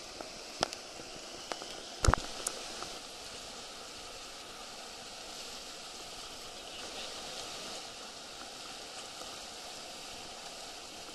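Whitewater rushing steadily in a river wave, with a few sharp knocks in the first few seconds, the loudest about two seconds in.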